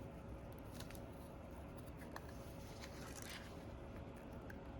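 Faint clicks and a short scrape about three seconds in, from plastic guitar picks being worked under the glued back glass of a Samsung S23 phone, over a faint steady hum.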